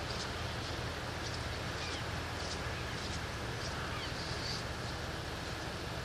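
Steady outdoor background noise with a low rumble, and faint, short, high bird chirps every second or so.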